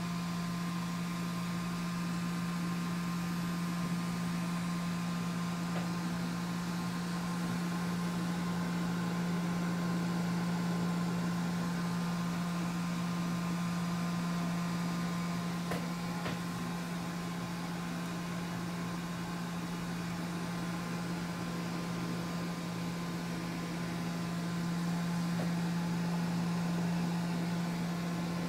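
Steady mechanical hum with a strong low drone and faint steady higher whines, swelling slightly now and then.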